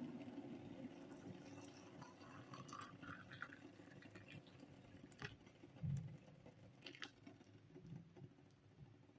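Near silence: faint room tone with a few small clicks and a soft low thump about six seconds in.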